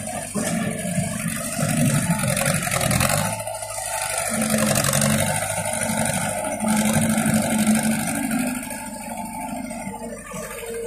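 Kubota skid steer loader's newly replaced engine running under load, revving up and down in swells as the machine pushes rubble with its bucket.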